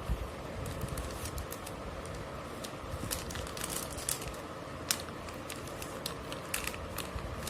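Scattered clicks and crinkles of a small product package being opened and handled by hand, over a steady background hiss.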